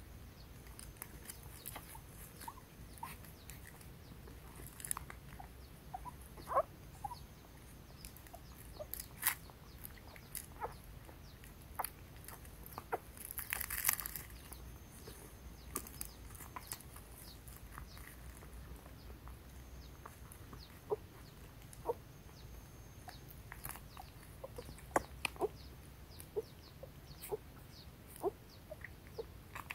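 Scattered short, faint animal calls and small clicks, with a brief rustle near the middle.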